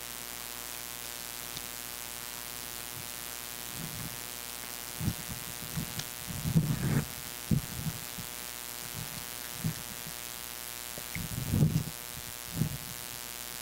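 Steady electrical hum and buzz from the sound system, with a few low thumps and rumbles on the microphone about a third of the way in, in the middle, and near the end.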